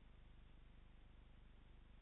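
Near silence: only a faint, steady hiss and low hum.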